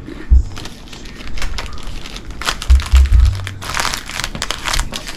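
Plastic snack wrapper crinkling as a packet is handled, with a few dull thumps of the packet or hands against the table or microphone.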